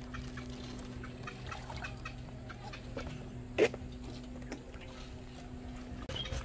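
Ducks on the water, with one short loud quack about three and a half seconds in and scattered small ticks, over a low steady hum that stops near the end.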